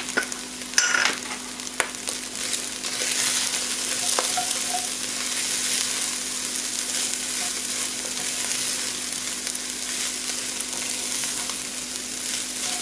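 Ground turkey and green onions sizzling in a frying pan as they are stirred, with a few sharp clicks of the spoon against the pan in the first couple of seconds; the sizzle grows louder after about two seconds.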